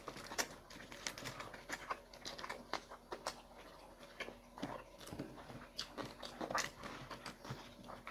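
Close-miked eating sounds: chewing and mouth smacking, with many short, irregular clicks.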